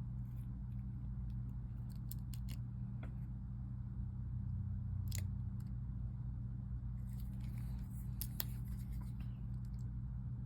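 Scattered light clicks and small taps from hand work on a phone during a screen repair, a few at a time with a cluster near the end, over a steady low electrical hum.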